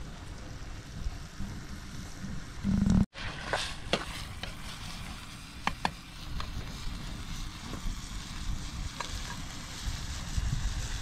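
Food sizzling in a cooking pot, with short metallic clicks of a utensil against the pot as it is stirred, over a low rumble. A loud low thud just before three seconds in breaks off abruptly.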